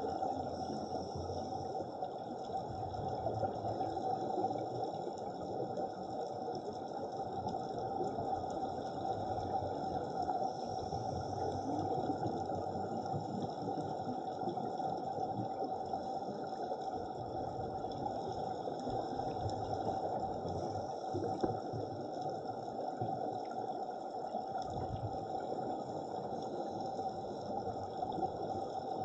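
Muffled underwater ambience heard through a camera housing: a steady watery rush and rumble, with a few faint steady high tones above it.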